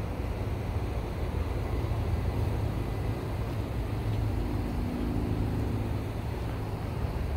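Steady low rumble of a running vehicle, with a faint hum joining for a couple of seconds about four seconds in.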